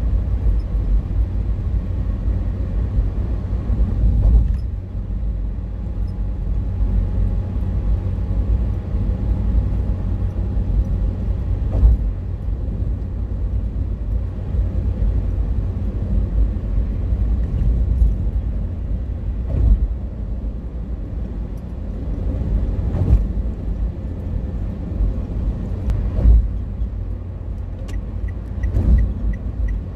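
Road noise inside a moving car's cabin: a steady low rumble from tyres and engine on a highway, with a dull thump every few seconds. A light, regular ticking begins near the end.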